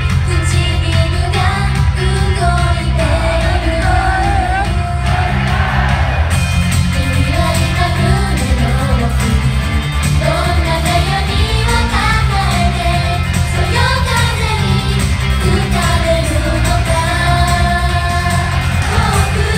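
Live J-pop from a female idol group: many voices singing the melody together into microphones over loud amplified pop music with a heavy, steady bass, played through a concert hall's sound system.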